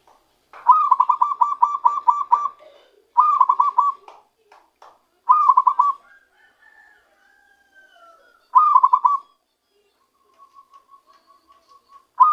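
Zebra dove (perkutut) cooing: four phrases of rapid staccato coo notes, the first the longest, then three shorter ones a few seconds apart, with a soft quick run of notes near the end. A wild-caught bird beginning to sing its natural song.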